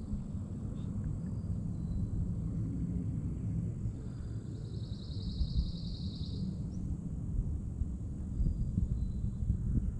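Outdoor field ambience with a steady low rumble. About four and a half seconds in, a high, rapid trill lasts about two seconds, with a few faint high chirps at other moments.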